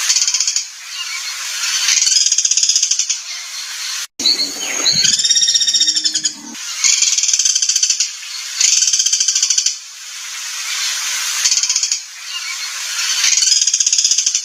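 Recorded songbird song used as masteran training material: repeated bursts of fast, harsh, high rattling trills, each a second or two long. Just after four seconds there is a brief break, and then a lower, falling call lasts about two seconds before the trills return.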